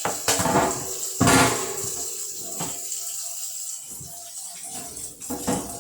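Tap water running into a sink while a freezer rack is handled under it, knocking against the sink a few times; the loudest knock comes about a second in.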